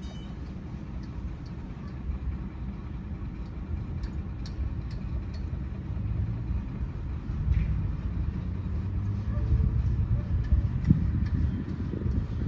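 Low, steady rumble of engine or vehicle noise, growing louder through the second half.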